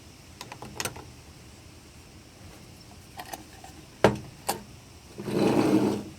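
Metal sonic screwdriver replica being handled: a series of clicks and knocks, the sharpest about four seconds in, then its electronic sound effect buzzes for about a second near the end.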